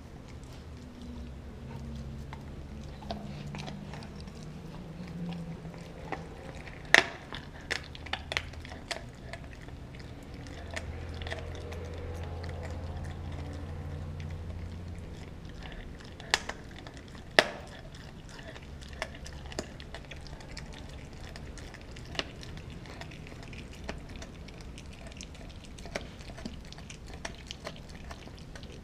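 Dog gnawing and chewing a frozen raw pig's foot: scattered wet chewing with sharp crunches of hard bone and frozen meat, the loudest about seven seconds in and twice around sixteen to seventeen seconds in, over a low steady background hum.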